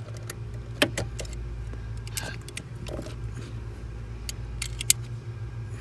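Small metallic clicks and rattles from hands working at a car's clutch pedal assembly, with two sharp clicks, one about a second in and one near the end, over a steady low hum.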